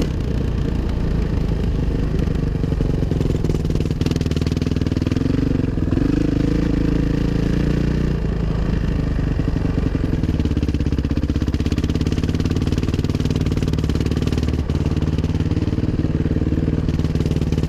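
2005 Suzuki RM-Z 450 dirt bike's single-cylinder four-stroke engine running at low speed, its revs rising and falling with the throttle.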